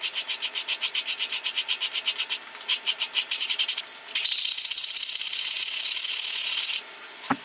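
Hand file rasping across the bevel of a steel knife blade, flattening the bevel: quick repeated strokes, several a second with a short pause, then a steady unbroken scrape from about four seconds in that stops abruptly near the end.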